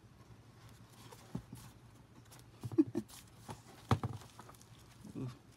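An old cloth-bound hardcover book being handled on a countertop: a few soft knocks and taps as it is set down and opened, and the rustle of its brittle pages being flipped, with one sharper knock about four seconds in.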